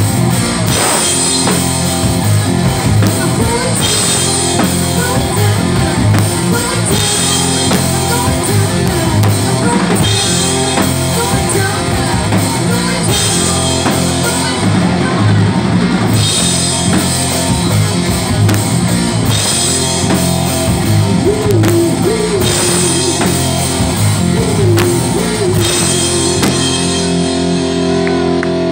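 Live rock band playing heavy blues-rock: a driving drum-kit beat with crash cymbal accents every few seconds, distorted electric guitar and bass, and some singing.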